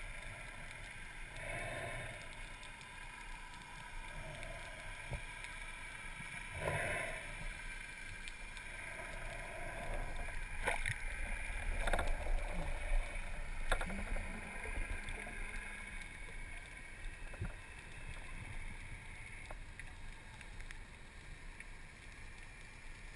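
Underwater sound heard through a camera's waterproof housing: water noise that swells and fades every second or two, with a few scattered sharp clicks.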